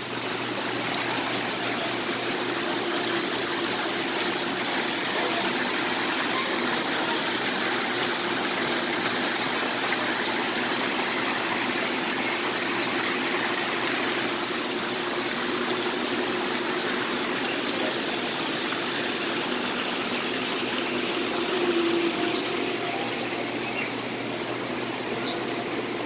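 Steady rush of running water, with a faint low hum under it.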